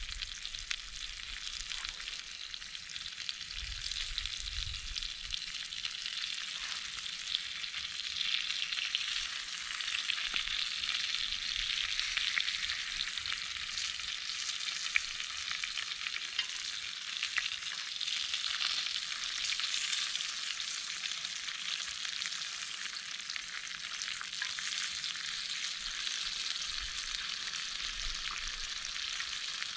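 Breakfast food frying in a pan: a steady sizzling hiss, dense with fine crackles, that runs on without a break.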